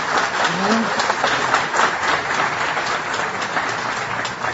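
Audience applauding, a dense patter of many hands clapping. A voice from the crowd is briefly heard about half a second in.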